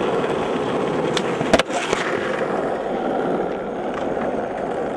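Skateboard wheels rolling on rough asphalt, a steady rumble, with a couple of sharp clacks from the board about a second and a half in.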